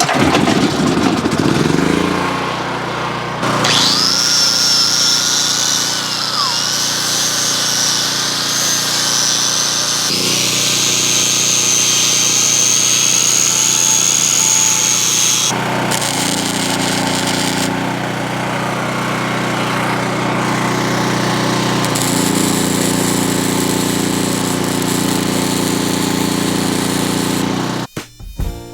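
Flux-core arc welding with a Lincoln Electric 90i FC, the arc crackling and sizzling through several long beads, over the steady running of a portable gasoline generator. The welding stops shortly before the end.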